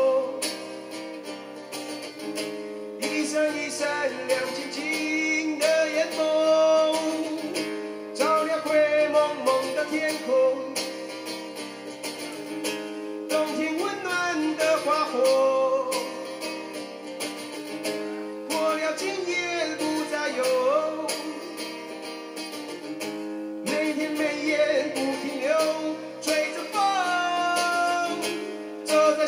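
A man singing a slow break-up love song over his own strummed acoustic guitar.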